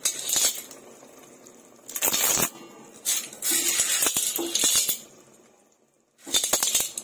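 Clam shells clattering and clinking against each other in a cooking pot as they are added and turned over, in about four bursts of rattling with sharp clicks.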